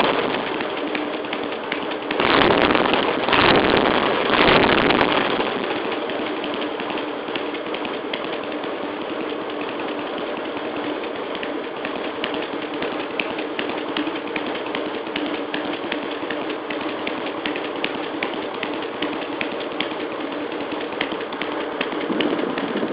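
Cruiser motorcycle engine heard through a modified stock North American-market muffler: a few quick throttle blips in the first five seconds, then idling steadily.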